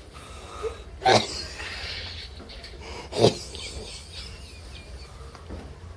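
Two short, loud bursts of breath or voice from a person, about two seconds apart, the second dropping in pitch.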